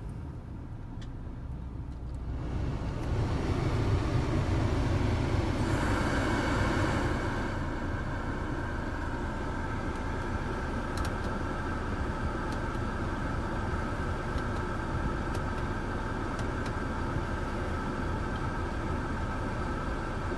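BMW 320i heard from inside the cabin with its engine running. The sound swells about two to three seconds in and is loudest for a few seconds, then settles to a steady level with a few faint clicks.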